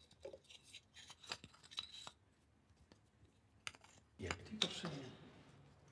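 Light clicks and rubbing of hands handling a small glass vial, with a louder burst of handling sound about four seconds in.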